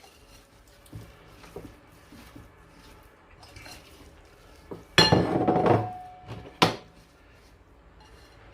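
Kitchen dishes and utensils clinking: a few light clinks, then a louder clatter about five seconds in and one sharp clink with a brief ring just before seven seconds.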